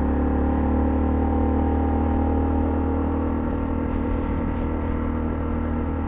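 Honda CL250's single-cylinder engine running at a steady speed while the motorcycle is being ridden.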